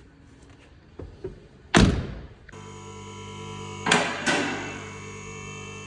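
A car door is shut with a heavy thunk just under two seconds in, after two lighter knocks. A steady multi-tone drone then starts abruptly, and two pairs of loud thuds sound over it.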